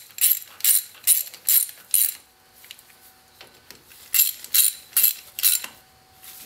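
Ratchet wrench clicking in short strokes, about two or three a second: a run of six, a pause of about two seconds, then four more. The strokes are tightening the cable fitting on the locker's differential cover.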